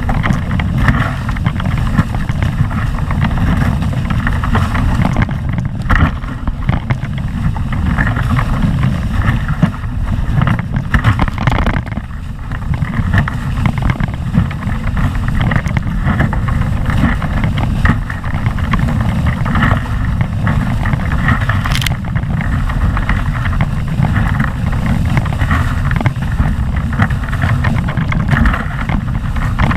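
Strong wind buffeting the microphone over the rush and splash of water off the hulls of a Windrush 14 catamaran sailing fast on a reach, with a heavy low rumble and the noise swelling and easing with the gusts.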